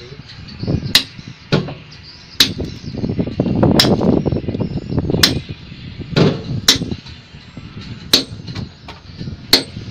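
Hand hammer striking a long-handled steel chisel held against a precast concrete pile, chipping through the concrete to cut the pile. Seven hard, sharp strikes come at an even pace, about one every second and a half, with a few lighter knocks between them.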